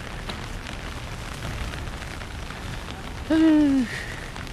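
Light rain falling steadily on an umbrella overhead and on the wet street, with scattered drop ticks. A little over three seconds in, a person makes one short voiced sound that falls in pitch, louder than the rain.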